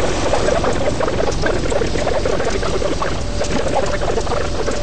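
Diesel freight locomotive running close by, a loud steady noise with no breaks.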